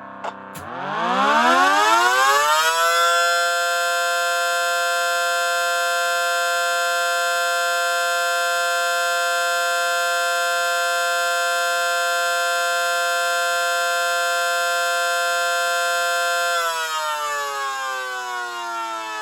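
Mechanical outdoor warning siren sounding its ASC/ACA fire signal. After a couple of sharp clicks, it winds up in pitch over about two seconds and holds one steady tone for about thirteen seconds. Then the power cuts and it winds down with falling pitch.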